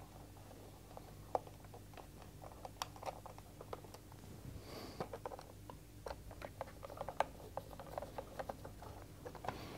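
Faint small clicks, taps and scrapes of fingers and a screwdriver working a small screw terminal block, fitting wires and turning the terminal screws.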